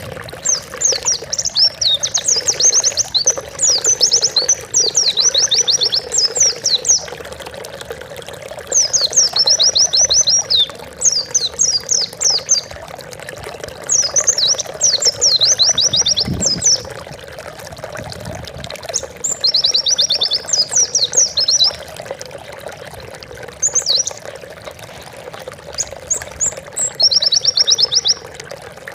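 Pleci (white-eye) singing in quick, high, chirping trills, phrase after phrase with short gaps, over a steady sound of running water.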